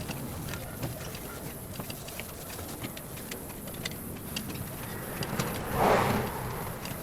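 Light handling noise from cleaning a pair of sunglasses by hand: scattered small clicks and taps over a steady background hiss, with one brief louder rustle about six seconds in.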